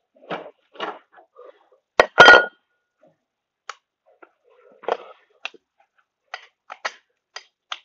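Small metal parts clicking and scraping as they are handled and worked apart with gloved hands, with a loud ringing metal clank about two seconds in, then a scatter of light, sharp clicks.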